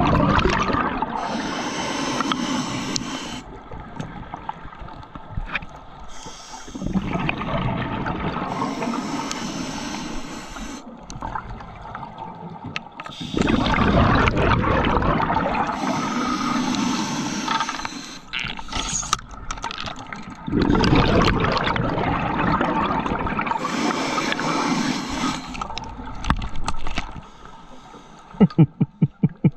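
Scuba diver breathing through a regulator underwater: a hiss on each inhale and a rush of bubbles on each exhale, rising and falling in a slow cycle of breaths.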